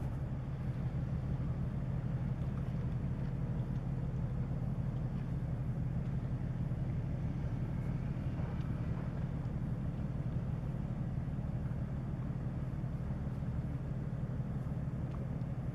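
Steady low drone of a passing offshore supply vessel's diesel engines, with a faint wash of harbour air noise over it.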